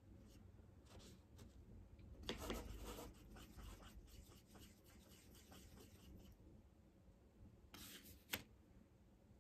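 Faint scratchy rubbing of a paintbrush being worked in a pan of a watercolour paint set while mixing green paint, strongest for about a second a couple of seconds in, with a single light tick near the end.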